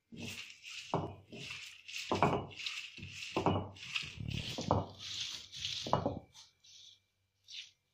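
Heavy cylindrical stone roller pushed back and forth over fresh leaves on a stone grinding slab: a rumbling scrape with each stroke, about one a second. The strokes stop a little after six seconds, leaving a few faint taps.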